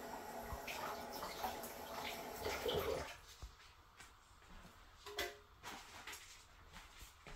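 Kitchen tap running with water splashing as dried chiles are rinsed, shutting off about three seconds in. A single sharp clink follows a couple of seconds later.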